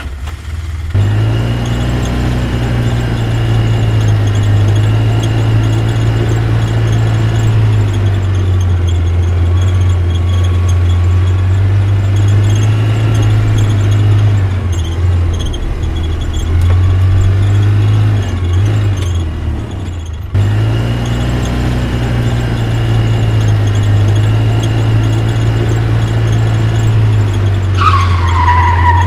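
A steady, loud car engine drone with tyre squealing. It breaks off briefly about two-thirds of the way through, and near the end a high squeal falls in pitch.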